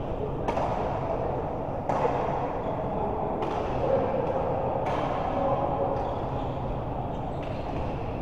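Racket hits in a doubles rally: five sharp strikes, most about a second and a half apart with a longer gap before the last, over a steady background murmur.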